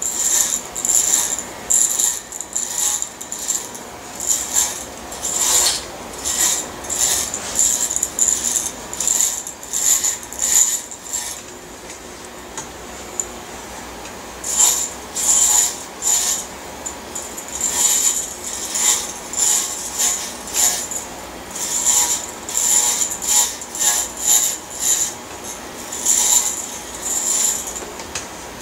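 Corded electric hair clippers with a guard cutting hair at the back of the head. A rasping buzz swells with each stroke through the hair, about one stroke a second, with a quieter spell of a few seconds near the middle.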